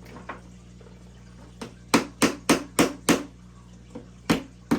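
A hard tool knocking repeatedly on the wooden knife kit to drive its pegs through the scales. After a quiet start there is a run of about six sharp knocks, roughly three a second, and two more near the end.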